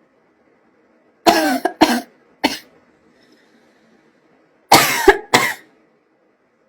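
Two bouts of short coughs, about three in each. The first comes about a second in and the second about two-thirds of the way through, and each cough drops in pitch.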